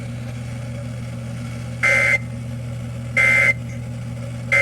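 Emergency Alert System end-of-message code: three short, identical squawks of digital data tones, about a second and a quarter apart, over a steady low hum. The code marks the end of the severe thunderstorm warning.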